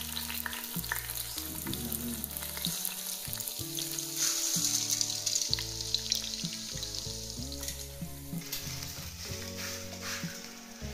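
Raw rice sizzling as it fries in hot oil in a stainless steel pot, the sizzle briefly brighter about four seconds in.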